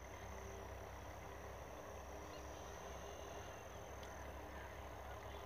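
Faint steady low rumble of a distant motor, with a thin high steady tone above it.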